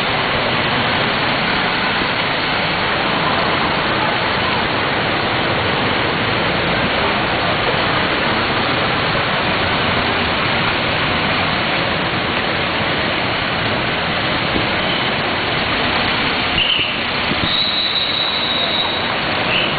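Steady rushing noise of floodwater and rain across a flooded street. A high, thin, steady tone comes in near the end.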